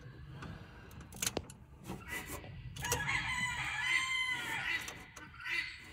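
A rooster crowing once, one long call of about two seconds starting about three seconds in. A couple of sharp clicks come a little over a second in.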